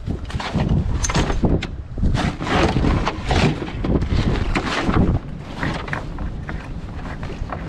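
Rustling and handling of a nylon dry bag and backpack as someone rummages through them, in irregular scrapes and crinkles. About five seconds in this gives way to a steadier, quieter low rush.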